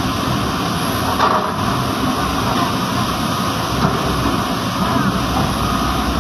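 Steady rushing noise of river rapids mixed with the running diesel engine of a Komatsu excavator standing in the river.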